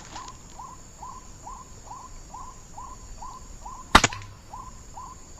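White-breasted waterhen call repeated steadily from an MP3 bird caller, about two and a half calls a second, with a single sharp air rifle shot about four seconds in.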